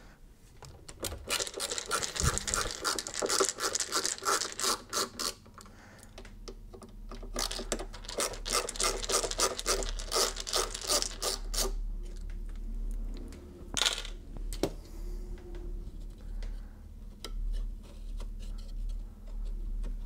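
Power screwdriver backing out the screws that hold a metal-framed tweeter to the speaker baffle, in two runs of about four seconds each with a rapid rattling. Then a sharp click, followed by quieter scraping as the tweeter is worked loose.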